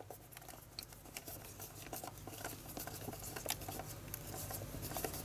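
Faint scattered small clicks and rustles of hands pressing and handling plastic model-kit parts and wiring, over a low steady hum.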